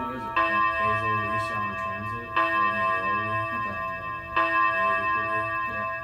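Seiko pendulum mantel chime clock striking the hour: three strikes about two seconds apart, each a bell-like tone that rings and slowly fades.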